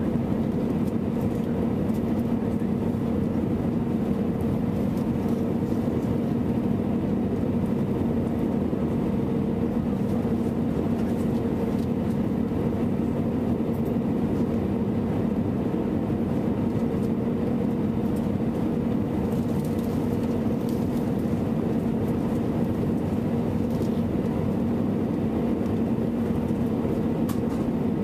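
Steady engine and airflow noise inside a Boeing 737 passenger cabin on final approach, with a steady low hum and a fainter higher tone running through it.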